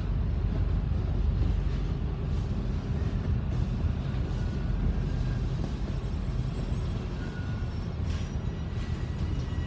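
Cabin sound of an MAN ND323F double-decker bus moving slowly: a steady low diesel engine and drivetrain rumble, with a few faint brief whines over it.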